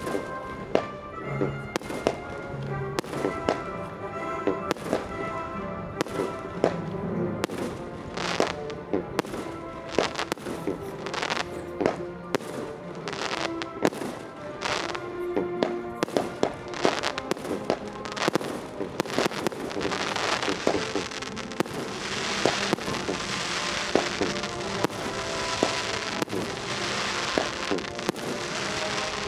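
Aerial fireworks bursting in quick succession, many sharp bangs over music playing throughout. About two-thirds of the way through, a dense steady hiss builds up under the bangs.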